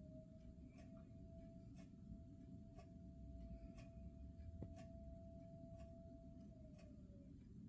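Federal Signal Model 5 mechanical house siren, faint and distant, holding one steady tone at full speed for several seconds. It starts to wind down, falling in pitch, near the end. This is a fire company siren sounding an alert to call out volunteers.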